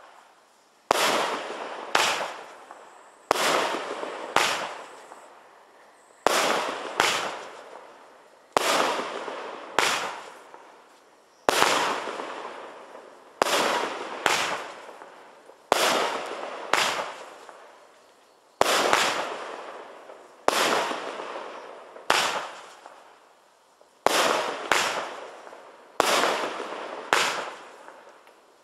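Blackboxx Venom fireworks battery firing shot after shot of palm bursts, one every one to two seconds and sometimes two in quick succession. Each shot is a sharp bang followed by a fading hiss.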